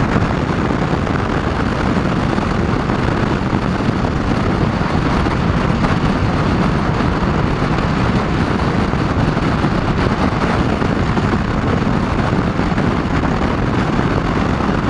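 Moto Guzzi V100 Mandello with its 1042 cc liquid-cooled 90° V-twin, ridden at a steady road speed. Wind and road noise make a loud, even rush, with the engine running beneath it and no gear changes.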